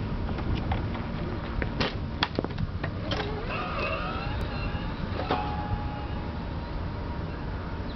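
Wallinger FX1 electric kick scooter with an upgraded motor riding off: a few sharp clicks, then a motor whine rising in pitch about three seconds in as it speeds up, settling to a steady tone. A constant low rumble sits underneath.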